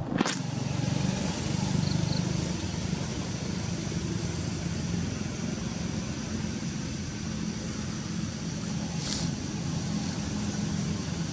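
A steady low rumble with a hiss over it, starting suddenly at the very beginning, with a brief sharper sound about nine seconds in.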